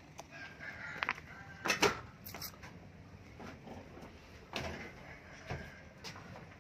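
Scattered knocks and clatter in a metal-sided livestock truck box, the loudest a sharp double knock about two seconds in, with lighter knocks later.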